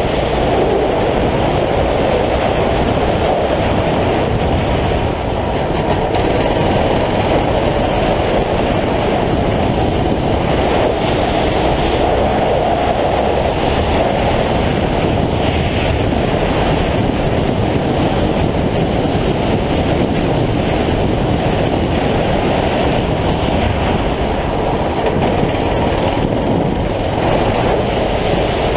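A 9 hp kart engine running continuously at racing speed through corners and a straight, heard from an onboard camera, loud and steady with no breaks.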